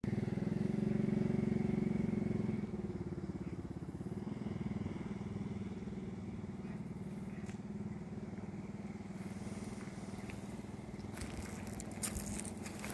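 A motor engine running steadily with an even hum, a little louder for the first two to three seconds. A few sharp crackles come near the end.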